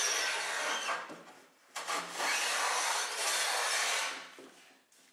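Large hand plane shaving along a long wooden board: one stroke ends about a second in, a second long stroke of about two seconds follows, and then it falls quiet near the end.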